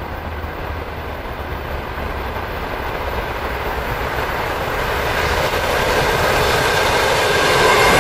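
ET2M DC electric multiple unit approaching on the track, its rolling noise growing steadily louder and brighter as it comes up and starts to pass close by in the last second or two.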